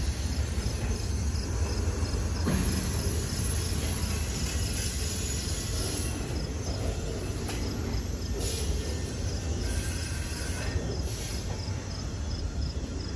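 Double-stack container well cars of a passing freight train rolling by, a steady low rumble of wheels on rail. A faint high-pitched chirp repeats evenly over it.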